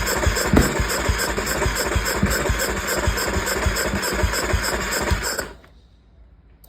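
The 2011 KTM 350 SX-F's single-cylinder four-stroke engine being cranked by its electric starter, turning over with an even chugging rhythm but not firing, until the starter is released about five and a half seconds in. The no-start is taken for a fuel-delivery fault, since the engine fires on starting fluid but not on its own injection.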